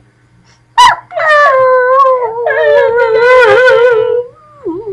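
Dog howling: one long, wavering howl that starts sharply about a second in, holds for about three seconds, then drops lower in pitch near the end.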